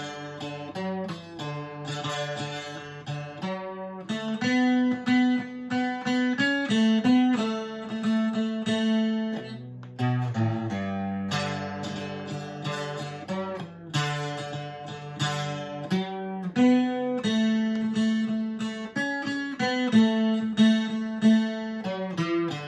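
Octave mandolin, a converted D'Angelico 12-string guitar tuned GDAE, picking and strumming a folk tune as a sound check, with ringing, steadily picked notes.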